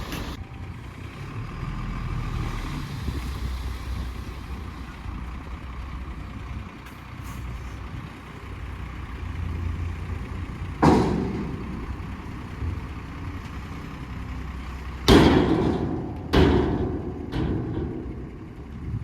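Heavy diesel machinery running with a steady low rumble, broken by four loud knocks about 11, 15, 16.5 and 17.5 seconds in, the last three close together.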